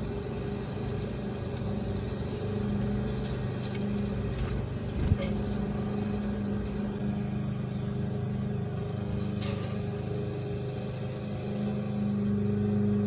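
A steady low mechanical hum, like an engine or machine running, with a string of short, very high-pitched chirps in the first three seconds and a couple of faint clicks later on.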